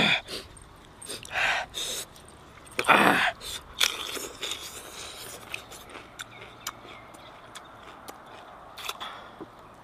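Close-up eating sounds of crispy fried chicken: crunching, chewing and small wet mouth clicks, with one short loud vocal sound about three seconds in.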